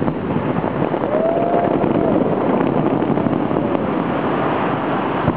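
Steady, dense rushing outdoor noise during a fireworks display, with a short whistle-like tone about a second in.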